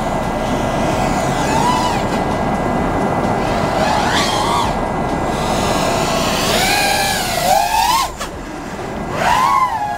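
Five-inch FPV quadcopter's brushless motors and propellers whining over a steady rush of wind noise, the pitch gliding up and down with throttle. There are sharp rises about four seconds in and again around seven to eight seconds, then a brief drop just after eight seconds.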